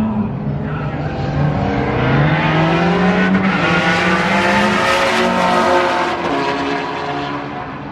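Two race cars at full throttle down a drag strip: a turbocharged Nissan 370Z Nismo with its VQ V6 and a supercharged Chevrolet Corvette C7 ZR1 V8. The engine notes climb in pitch through the gears and are loudest about halfway through, as the cars pass, then fade a little.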